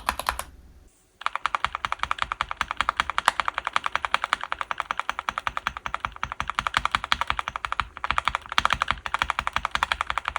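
Fast, continuous typing on a mechanical keyboard fitted with linear switches, each keystroke a sharp clack. A short run of strokes stops half a second in, and after a brief pause the typing resumes steadily about a second in.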